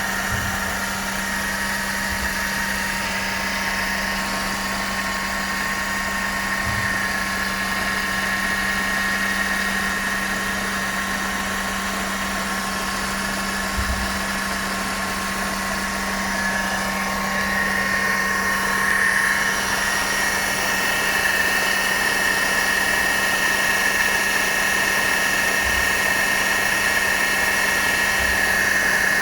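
Mercedes-Benz W211 E200 Kompressor's supercharged four-cylinder engine running at idle, with a steady high-pitched whine from the supercharger, the abnormal supercharger noise being shown. The whine grows louder a bit past halfway through.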